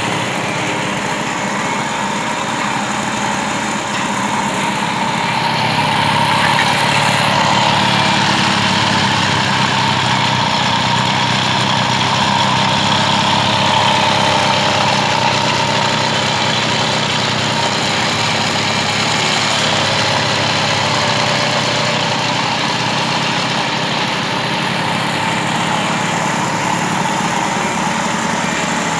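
1980s Hero Majestic moped's small two-stroke engine idling steadily, running after being repaired.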